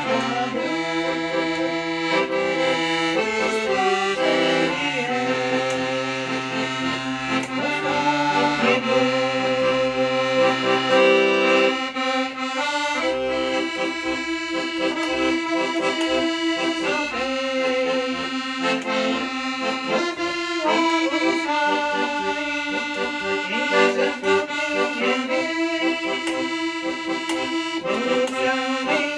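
Hohner piano accordion playing a tune: held chords with a moving melody, with low bass notes under the first part.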